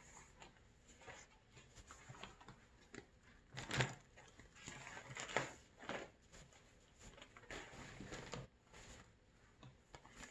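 Pieces of crocodile leather rustling and flapping as they are lifted, shaken out and dropped back onto a pile, with irregular soft slaps and a louder one about four seconds in.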